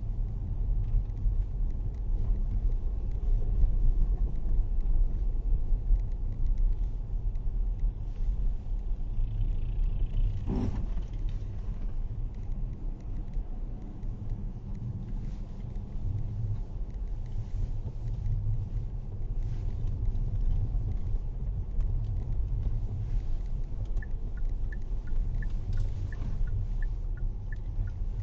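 Steady low rumble of a car driving, with a single knock about a third of the way in and a run of light, evenly spaced ticks near the end.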